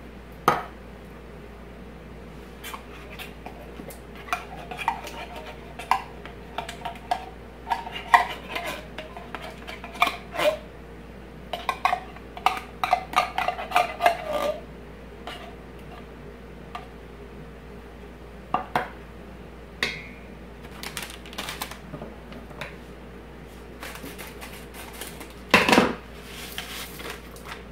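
A spatula scraping thick condensed soup out of a metal can, with scattered clinks and knocks of the can and spatula against a large stainless steel mixing bowl. The knocks come in a busy run in the middle, with one loud knock near the end.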